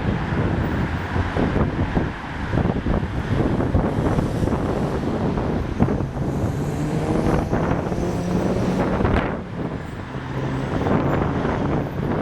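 Fireworks going off in quick succession, many sharp bangs and crackles over a steady low rumble. A low steady drone joins about halfway through.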